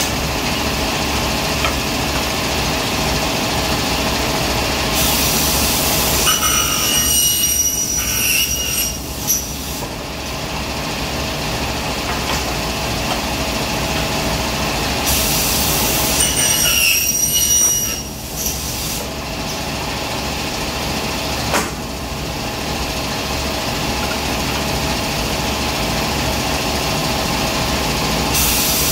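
Aluminium-cutting saw running with a steady hum. Twice, about five and fifteen seconds in, the spinning blade goes through an aluminium profile with a high metallic squeal lasting about three seconds, each cut followed by a sharp click; another cut begins right at the end.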